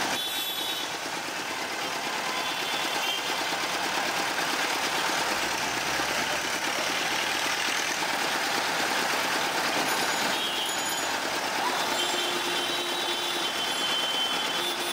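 Steady engine noise of busy street traffic. A low swell about five to seven seconds in suggests a vehicle passing, and faint high tones come and go.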